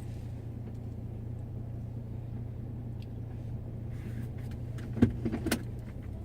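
Vehicle engine idling with a steady low hum; a few sharp clicks about five seconds in.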